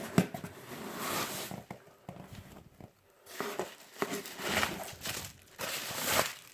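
Packaging rustling and crinkling as a shipping box is opened and its contents unpacked, in several short bursts with brief pauses between them.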